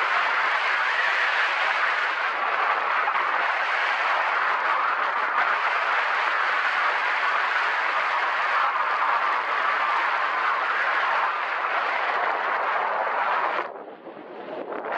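Steady rush of wind buffeting the microphone. It drops away sharply for about a second near the end, then comes back.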